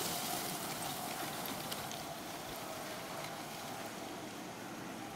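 Faint steady hiss of a dog sled and its team moving away over packed snow, slowly fading, with a few faint ticks.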